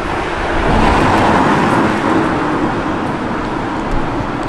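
A car driving fast past on the street, its engine and tyre noise swelling to a peak about a second in and then slowly fading away.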